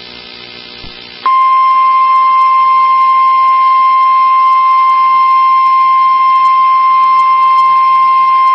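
A NOAA Weather Radio warning alarm tone: one steady, loud, high beep near 1050 Hz that starts about a second in and holds without a break. It is the alert tone that announces a new severe thunderstorm warning broadcast.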